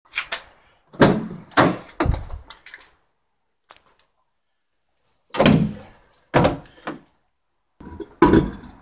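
A series of heavy thuds, each dying away quickly, with stretches of dead silence between them: about four in the first two seconds, then more a few seconds later.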